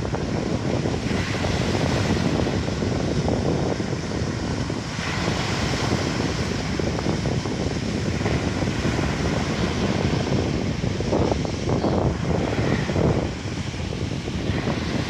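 Wind buffeting the microphone in a steady low rumble, with sea waves washing onto the shore underneath.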